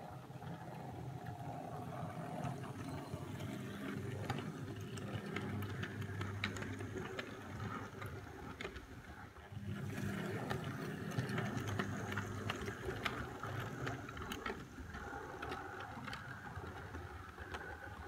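OO gauge model train running on the layout: a steady small electric-motor hum with irregular clicks and rattles from the wheels on the track, dipping briefly about halfway.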